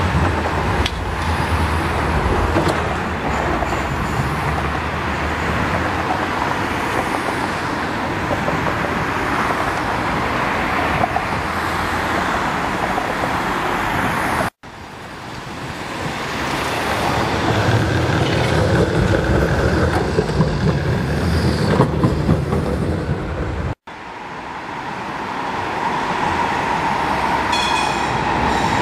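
City trams and road traffic running along a street, a steady rumble of rails and motors, broken by two abrupt cuts in the recording.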